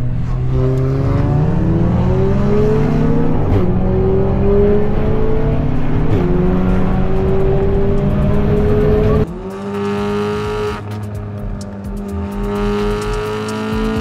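Car engine accelerating hard through the gears, its pitch climbing and dropping back at each of three upshifts a couple of seconds apart. About nine seconds in it cuts to a quieter engine note that climbs slowly under steady acceleration.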